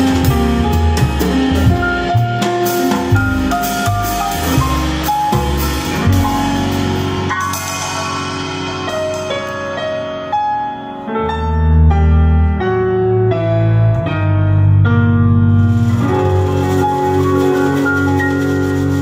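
Live jazz trio: plucked double bass, grand piano and drum kit playing together. In the middle the cymbals and drums fall away for several seconds, leaving piano and bass, then the drums come back in.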